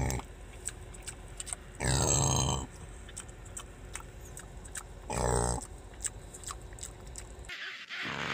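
Pet pig giving two loud grunts: a longer one about two seconds in and a shorter one about three seconds later, with faint mouth clicks between.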